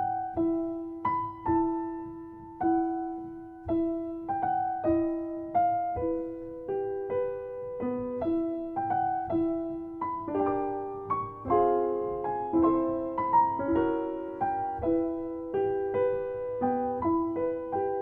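Background music: a slow solo piano melody of single notes that ring and fade, growing fuller with chords in the middle.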